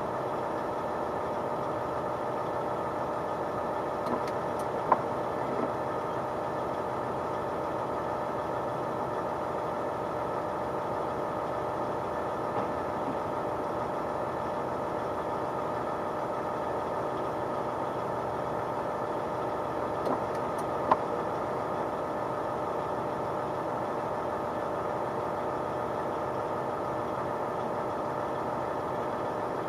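Heavy diesel engine running steadily, with a few short sharp clicks about five seconds in and again about twenty seconds in.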